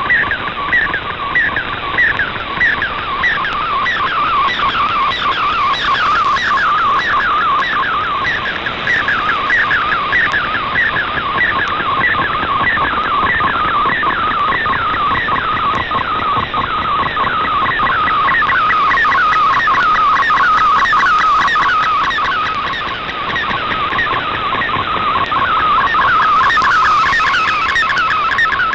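Shortwave digital-mode picture transmission (MFSK image) received on a software-defined radio: a fast, repeating warble of gliding tones over a steady band of radio hiss.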